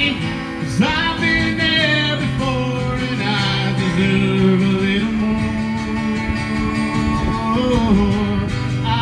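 A man singing along with his own strummed steel-string acoustic guitar, holding long notes between lines.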